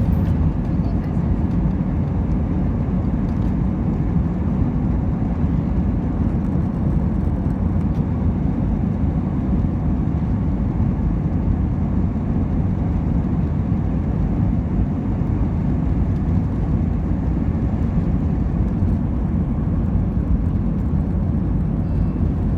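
Steady low rumble of an Airbus A320 heard from inside the cabin, engines and airflow running at an even level with no rise or fall.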